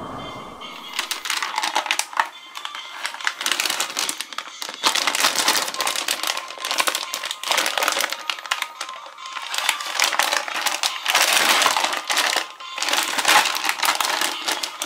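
Glossy foil-plastic packaging bag crinkling as it is handled and squeezed, in uneven surges with quieter gaps between them.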